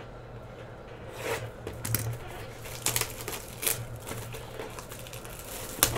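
Plastic shrink wrap being torn and pulled off a sealed trading-card box: irregular crinkling snaps from about a second in, the sharpest just before the end, over a steady low hum.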